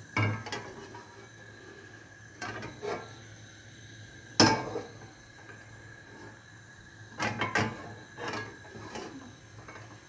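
Metal pan clinking and knocking against the steel grate of a gas stove, a series of separate clanks with short ringing, the loudest about four and a half seconds in.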